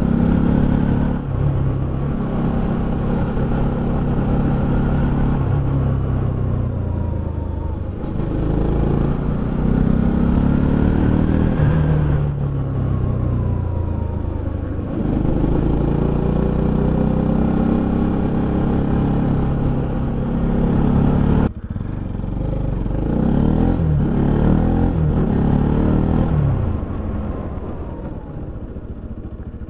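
Bajaj Pulsar NS200's single-cylinder engine under way on a winding road, its revs climbing and then dropping several times as the throttle is opened and closed; it goes quieter near the end as the bike eases off.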